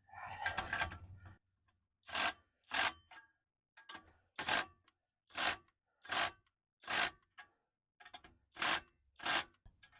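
A hand tool working on metal: a brief scrape, then about a dozen short rasping strokes at an even pace of roughly one and a half a second.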